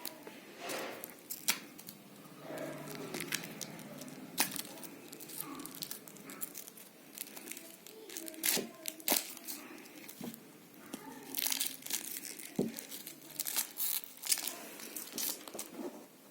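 Sticky-note packaging being handled and torn open: irregular crinkling and tearing with sharp crackles throughout.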